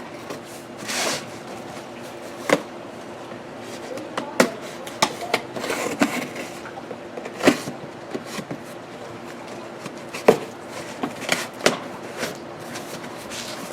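A knife cutting packing tape and a cardboard shipping box being opened and handled: scattered sharp knocks and short scraping rustles.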